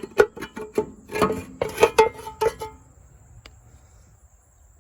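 Valve cover of a 1950 John Deere M engine being worked loose and lifted off: a quick run of metal clanks and rattles with some ringing, stopping about three seconds in. Crickets trill steadily behind.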